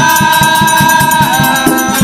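Oggu katha singing: a man's voice holds one long high note, stepping down a little past the middle, over a fast, even percussion beat of about eight strokes a second.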